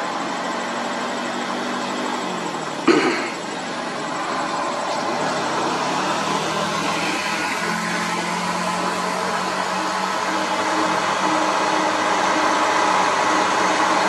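Diesel engine of a Nissan UD self-loader truck pulling uphill under load, growing steadily louder as it comes closer. A short, sharp, loud sound about three seconds in.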